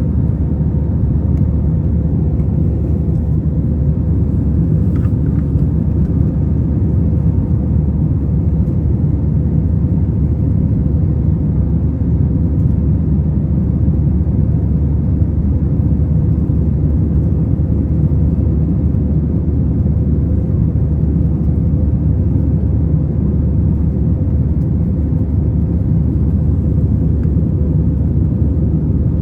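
Steady low rumble of an Airbus A321 in flight, its jet engines and airflow heard from inside the passenger cabin, with a faint steady hum running through it.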